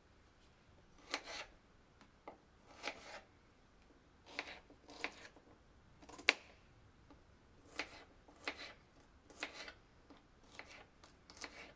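Small paring knife slicing and chopping garlic cloves on a plastic cutting board: about a dozen separate cuts, irregularly spaced, the sharpest about halfway through.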